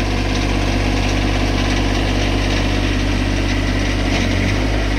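RK24 subcompact tractor's diesel engine running steadily just above idle while the hydraulic front loader is slowly raised. The engine note shifts slightly about four seconds in.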